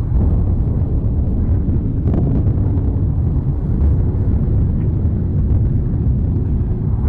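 Volcanic eruption: a loud, steady low rumble, with a few faint sharp cracks on top.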